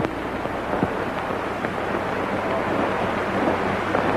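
Steady rushing background noise with a low, even hum underneath and a few faint clicks.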